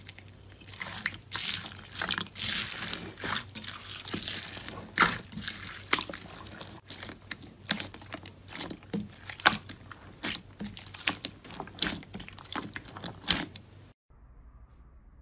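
Small foam beads in clear slime crackling and popping as a hand presses and squeezes through them: a rapid, irregular run of crunchy pops with wet squishing. It stops abruptly near the end.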